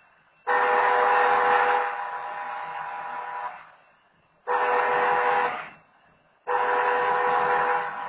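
Locomotive air horn of BNSF engine 9250 sounding the long-long-short-long grade-crossing pattern, a chord of several steady tones: a long blast about half a second in, a short blast about four and a half seconds in, then the final long blast starting near the end. The pattern announces the train's approach to a road crossing.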